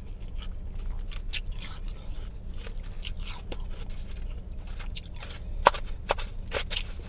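A mouth biting and chewing soft freezer-frost ice: irregular crisp crunches, the sharpest one a little before the sixth second.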